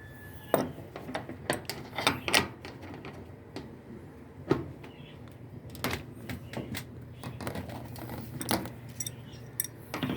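Irregular sharp clicks and light knocks, as of hard objects being handled, over a low steady hum.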